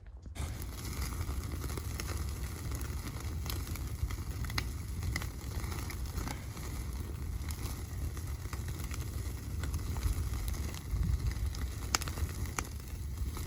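A fire crackling and burning, with scattered sharp pops over a steady low rumble.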